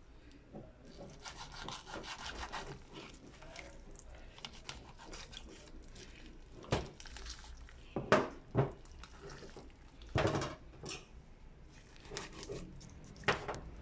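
Knife scraping and cutting raw chicken flesh away from the bones, a rasping rub, with a few sharp knocks in the second half.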